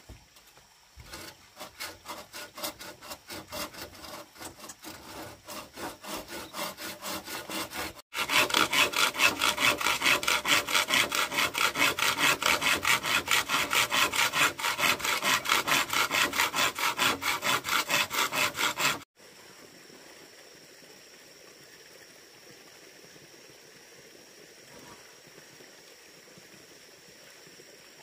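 Hand saw cutting green bamboo in quick back-and-forth strokes, about three a second. The strokes are soft for the first several seconds, then much louder. They stop suddenly about two-thirds of the way through, leaving a faint steady background hiss with a thin high tone.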